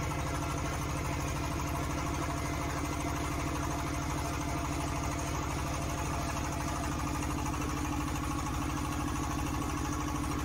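DH150 water well drilling rig's engine running steadily with a fast, even pulse, as the power head turns the first drill pipe forward, drilling down into the ground.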